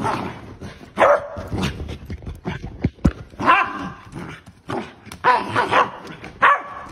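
A puppy play-barking in a play bow: about seven short, high-pitched barks spread over a few seconds, with gaps between them.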